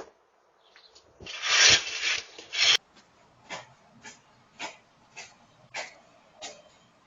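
A loud scraping, rubbing noise lasting about a second and a half, then six short scuffs evenly spaced about half a second apart.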